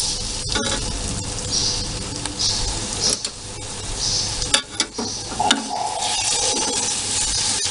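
Diced pineapple and sugar sizzling in a metal kadhai while a wooden spatula stirs and scrapes through it, with a few sharp knocks of the spatula against the pan around the middle.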